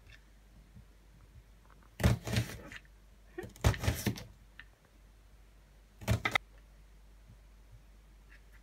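Kitchen knife cutting through an onion onto a plastic cutting board: three separate cuts, about two, four and six seconds in.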